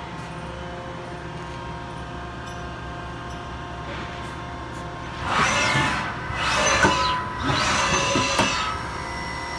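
Haas VF-3 vertical machining center running its program: a steady machine hum, then from about five seconds in, three loud rushes, each rising and falling, as the axes make quick moves.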